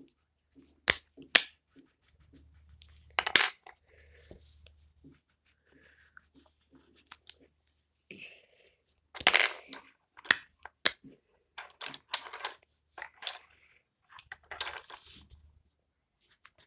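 Colouring on paper: short scratchy strokes with scattered sharp clicks and taps from handling things on a table, in uneven bursts with quiet gaps between.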